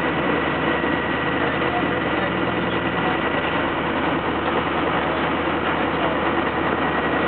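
Steady drone of fire apparatus engines running at a fire scene, holding an even level with no change.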